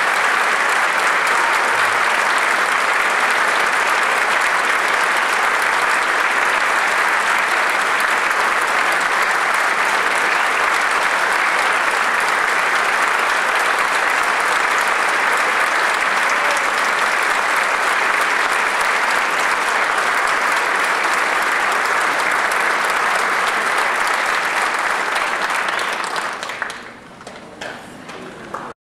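Concert audience applauding steadily, then dying away into a few scattered claps near the end.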